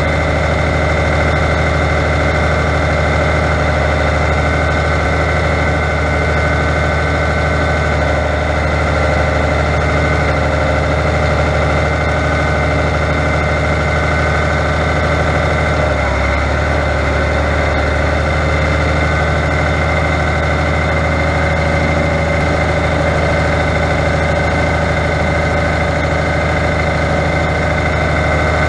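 Fiat 100-90 tractor's diesel engine running steadily, heard from the driver's seat, with a steady high whine over the engine. About halfway through, the engine note briefly changes, then settles back.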